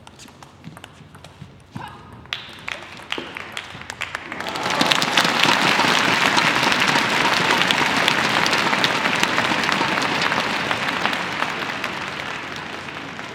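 Table tennis rally: the celluloid ball clicking off bats and table. About four seconds in, crowd applause breaks out loudly and slowly eases off near the end.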